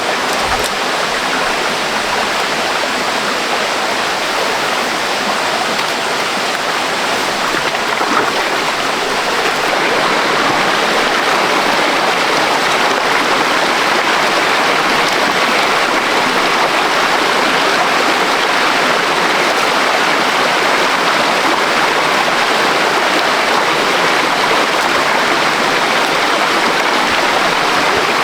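Stream water rushing over rocks: a steady, dense hiss of flowing water that grows a little louder about ten seconds in.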